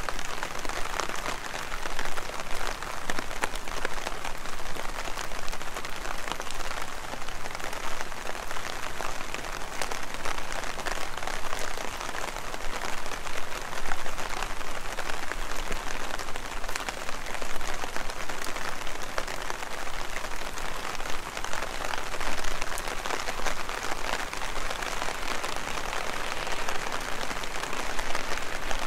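Heavy rain falling steadily: a dense patter of countless drop clicks that swells a little now and then.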